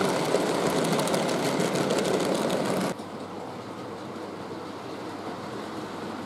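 OO gauge model freight train running past, its wheels rattling over the track with many fine clicks. About three seconds in it cuts off suddenly, leaving a faint steady hiss.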